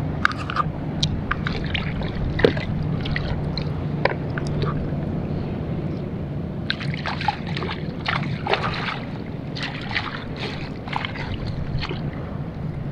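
Water dripping and splashing from a wet landing net, with scattered light clicks and knocks as fishing gear is handled, over a steady low hum.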